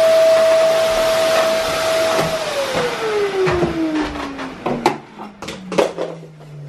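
Canister vacuum cleaner running steadily, then switched off a little over two seconds in, its motor whine falling in pitch as it spins down. A few knocks sound in the second half as it is handled.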